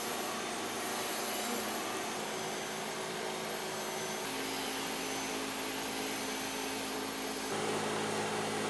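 Steady machine whirring with a broad hiss; about seven and a half seconds in, a lower hum joins and it grows a little louder.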